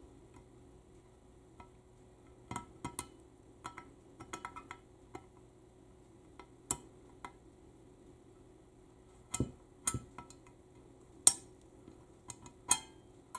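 Small steel parts and hand tools clicking and clinking against an automatic transmission valve body as a keeper and spring are worked out of a bore, in scattered light taps with a few sharper clinks in the second half.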